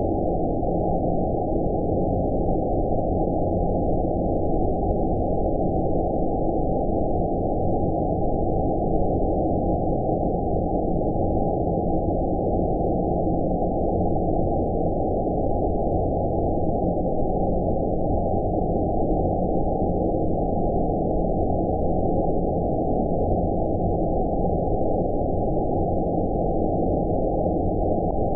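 Steady low rumbling noise with everything above the low-mid range filtered away, an unchanging 'outer space' sleep-noise track.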